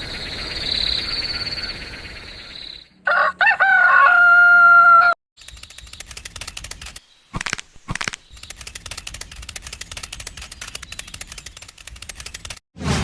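Crickets chirping, then a rooster crowing loudly for about two seconds. After the crow comes a steady, rapid clicking that lasts most of the remaining time.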